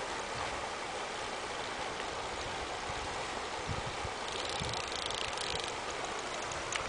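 Steady outdoor hiss of wind on the microphone, with a spinning reel ticking rapidly for about a second and a half near the middle while a fish pulls on the bent rod.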